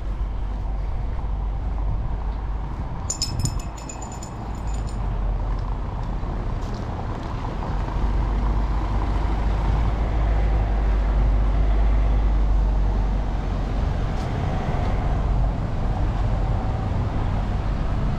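Street traffic: a motor vehicle engine running close by, a steady low rumble that grows louder about halfway through. A brief run of quick, high ticks comes about three seconds in.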